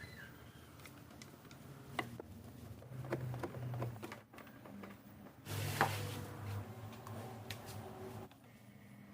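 Scattered small clicks and knocks, as of fan parts being handled during a repair, the sharpest about six seconds in, over a faint low hum that comes and goes.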